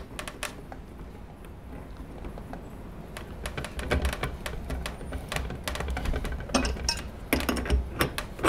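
A Teflon-taped brass adapter being threaded into a plastic water-filter head and tightened with a pipe wrench. Irregular small clicks and ticks of metal on plastic, sparse at first and busier after about three seconds, with low knocks of handling.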